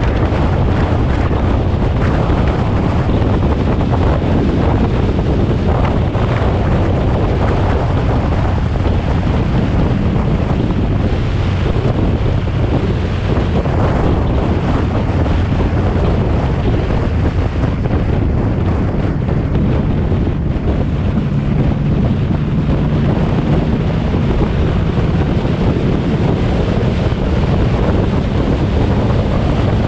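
Twin-turbo Nissan 350Z driving at speed, its engine's steady drone under heavy wind noise buffeting the microphone.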